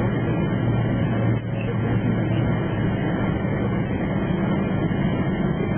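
Steady low rumble of airliner cabin noise from the jet's engines and air systems, even throughout.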